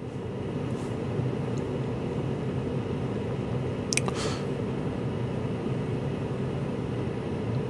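Steady mechanical hum inside a Smart Fortwo 451's cabin with the ignition on, swelling slightly in the first second and then holding even. A light click about four seconds in.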